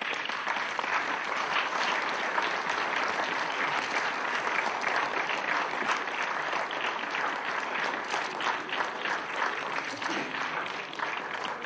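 Audience applauding: many hands clapping in a dense, steady patter that thins out a little near the end.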